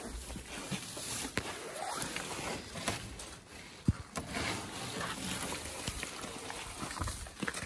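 Rustling and shuffling of hay in a livestock pen, with a sharp knock about four seconds in.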